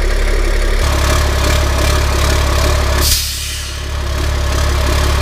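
CAT 3126 inline-six diesel idling steadily, with a sharp hiss of air about three seconds in. The hiss fits the air compressor governor cutting out and the dryer purging, which the owner finds happens before the system reaches 120 psi, so the governor needs turning up.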